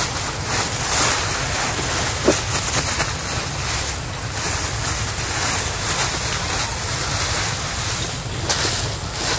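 Wind buffeting the microphone: a steady rushing noise that swells and eases in gusts, with one small knock a couple of seconds in.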